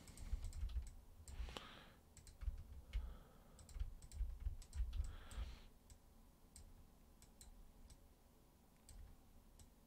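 Faint, irregular clicking of a computer mouse and keyboard, thicker in the first six seconds and sparser after.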